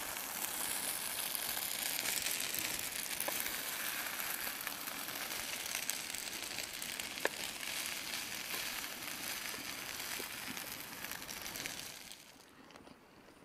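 Chicken and noodle stir fry sizzling in a frying pan on a camping stove, with a few sharp clicks of a wooden spatula against the pan and bowl as it is served. The sizzle cuts off near the end.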